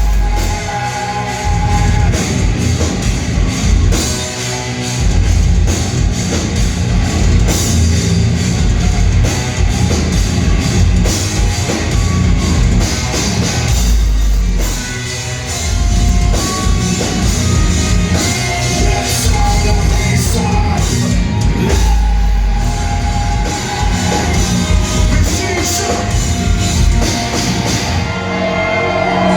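Live heavy metal band playing loudly: drum kit, distorted guitars and bass, with singing.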